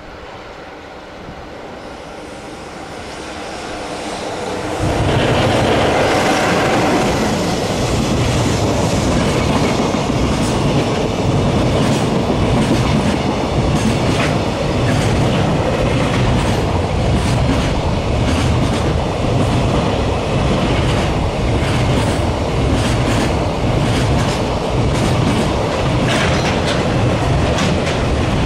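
Freight train behind an electric locomotive passing close by: the sound builds over the first few seconds, then the wagons roll past with a steady running noise and a quick clickety-clack of wheels over rail joints.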